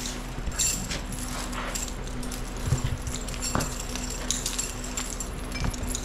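Metal bridle hardware (buckles and bit) jingling and clinking in many small, irregular clicks as a bridle is fitted onto a draft horse, with a few dull knocks.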